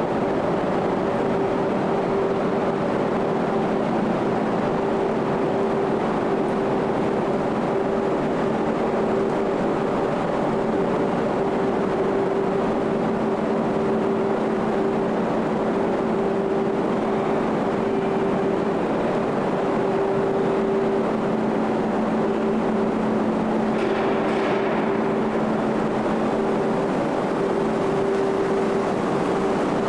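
Steady drone of a car ferry's engines and machinery, heard on its enclosed car deck, with a low hum holding two steady tones. A brief hiss-like noise rises over it about three-quarters of the way through.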